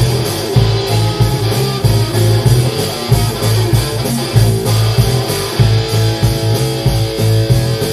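Live band playing an instrumental passage with electric guitar, electric bass and drum kit, with a steady beat.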